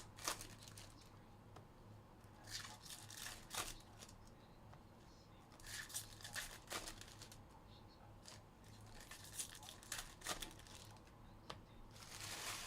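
Faint tearing and crinkling of foil trading-card pack wrappers being ripped open and handled, in short scattered rustles with a longer rip near the end, over a steady low hum.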